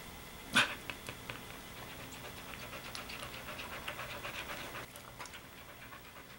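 Soft-coated wheaten terrier mother panting while whelping, licking her newborn puppy with a run of small wet clicks. A single sharp click comes about half a second in.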